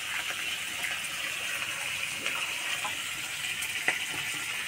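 Steady sizzle of prawns frying in mustard oil, with water dripping and a few soft clicks as wet shredded dried cabbage is squeezed and drained in a steel colander.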